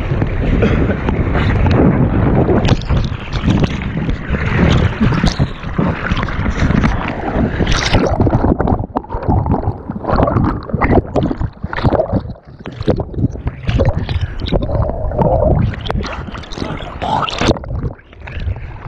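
Whitewater rushing and splashing right at the microphone of an inflatable kayak running river rapids. The water is dense and steady at first, then from about eight seconds in it turns choppy, with separate splashes and short lulls.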